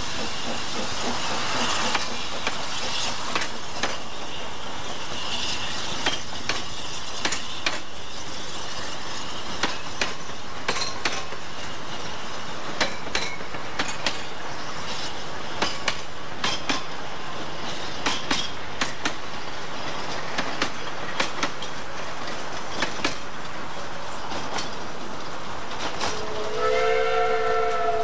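Narrow-gauge steam train's carriages rolling past, the wheels clicking unevenly over rail joints and points. Near the end the locomotive's whistle sounds, a chord of several tones held for a couple of seconds.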